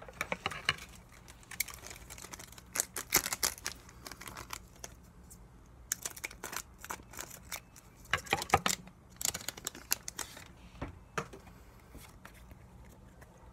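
Pokémon trading cards and plastic being handled: irregular clusters of crinkles and clicks that die down near the end.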